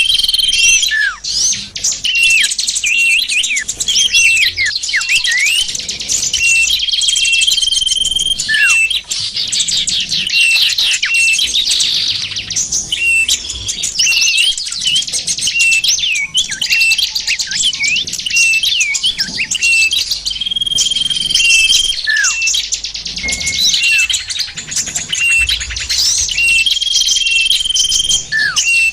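Dense chorus of small songbirds chirping and twittering from a bird-lure recording, with a held high whistle that comes back every several seconds and short notes sweeping downward.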